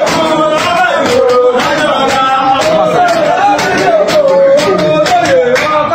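Live call-style singing, one melodic line rising and falling, over sharp regular percussive beats about two to three a second.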